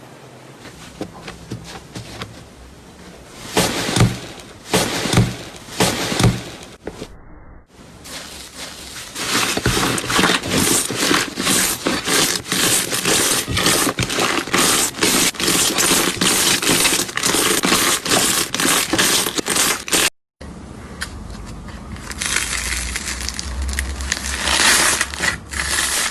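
Slime being squeezed and pressed by hand, giving dense crackling and popping. The sound breaks off sharply twice and starts again with a different texture, the busiest crackling coming in the middle stretch.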